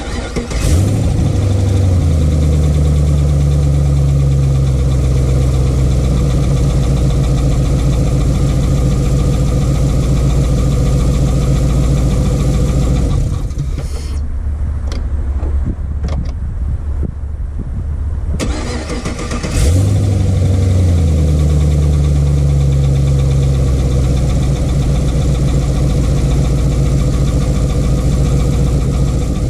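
Pontiac G8 GT's 6.0 L L76 V8 starting, fast-idling briefly and settling to idle, then starting again about two-thirds of the way through after a stretch where it changes. The idle carries the ticking of a bad lifter and the scrape of a worn camshaft.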